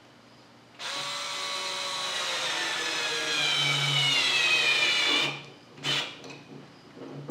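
Cordless drill-driver running for about four seconds, driving a screw into the end cap of a vise handle; its whine drops in pitch toward the end as the screw seats and tightens, then it stops. A short knock follows about half a second later.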